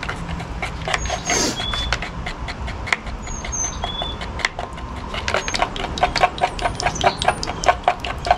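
Wooden stir stick scraping and clicking against the sides of a plastic mixing cup as two-part epoxy resin and hardener are stirred. The clicks are scattered at first, then turn into a quick steady rhythm of about five a second in the second half.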